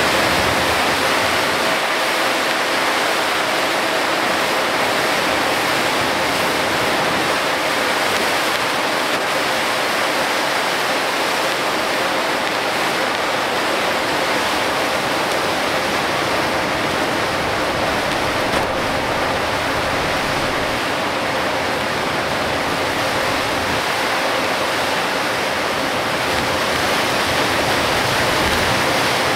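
Steady, loud rush of torrential rain and tyre spray on a flooded road, heard from inside a Hino Selega HD coach.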